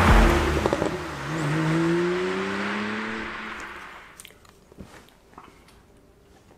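A car engine sound effect revving up in a rising whine over a rush of noise that fades away within about four seconds, followed by a few faint small clicks.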